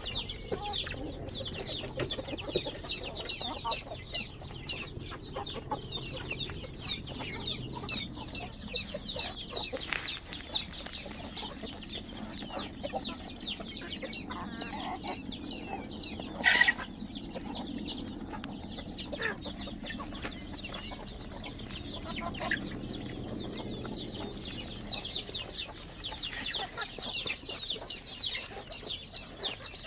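Chickens clucking as they feed, over a steady chatter of short, high chirps. One brief, louder noise comes about halfway through.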